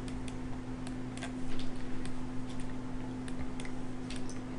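Scattered, irregular clicks of a computer mouse and keyboard, over a steady low hum.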